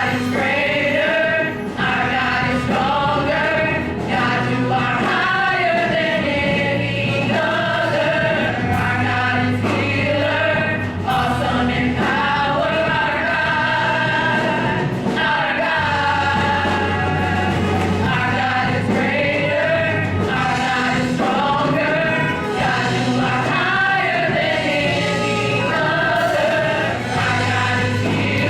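Gospel praise-and-worship song: a choir singing with a band, a steady bass line and a regular beat underneath.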